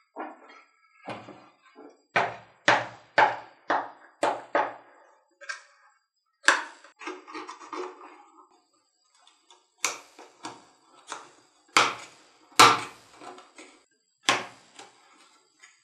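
An old, dried-out leather knife sheath being handled on a wooden workbench, picked apart and scraped with a hand tool: a series of sharp taps and scrapes, about two a second for a few seconds, then more spread out.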